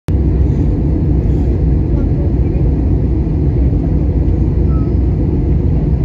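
Steady in-flight cabin noise of an Airbus A320 from a window seat over the wing: a loud, even low rumble of engines and airflow through the fuselage.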